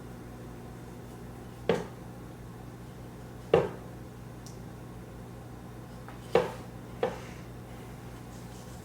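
Four separate sharp knocks of a kitchen knife against a cutting board while mango is cut up, spaced irregularly about one to three seconds apart, over a steady low hum.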